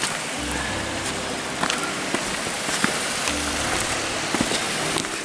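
Steady rushing of running stream water, with a few light clicks over it.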